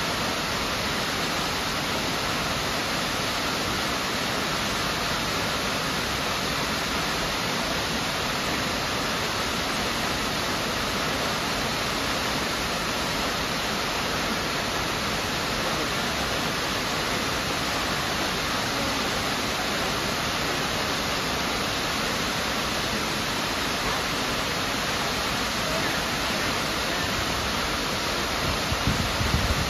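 Miners Falls, a waterfall pouring over a sandstone cliff into a rocky pool, rushing steadily with an even, unbroken noise of falling water. A few low thumps come near the end.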